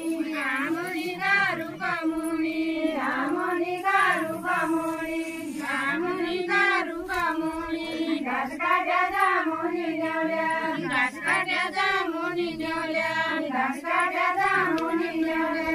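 A group of women singing a Deuda folk song together, unaccompanied, the melody staying close to one pitch with short rises and dips.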